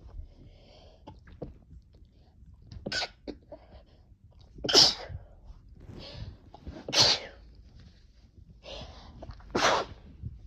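A person sneezing four times in a row, about two seconds apart, each sneeze preceded by a drawn-in breath. The second sneeze is the loudest. The sneezes are set off by snuffing chhinkni, a herbal sneezing powder.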